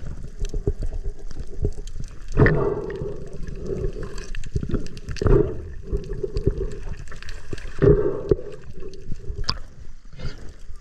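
Water heard through a submerged camera: muffled gurgling with many small clicks, and three louder gurgling surges spaced about two and a half seconds apart.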